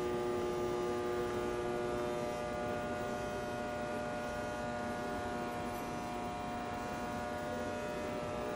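Steady electrical hum of high-power shortwave broadcast transmitter equipment, a stack of many steady tones over a low hiss; one of the lower tones fades out about two seconds in.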